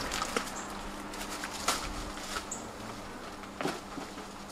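Footsteps crackling and snapping over dry debris and twigs, with a few short high bird chirps.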